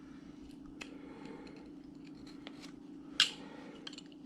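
Carving knife cutting into wood, slicing off small slivers with a few short, sharp snicks, the loudest a little after three seconds in.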